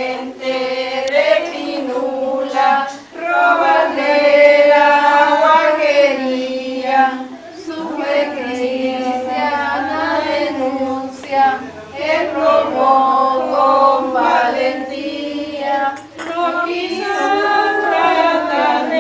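A group of women and girls singing a song together, in phrases of a few seconds broken by short pauses for breath.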